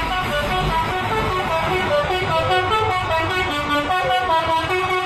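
Bus 'telolet' horn, a multi-tone air horn, playing a quick tune of short notes that step up and down in pitch, over a low steady rumble.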